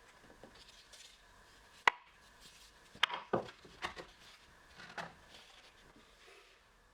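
Wooden pieces knocking together in a few sharp, separate knocks: one loud knock about two seconds in, a quick cluster around three seconds, then two more single knocks.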